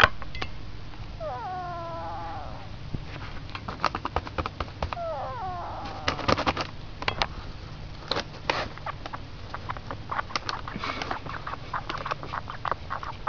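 A duck snoring: two short calls that waver in pitch, the first about a second in and the second about five seconds in, among many small clicks.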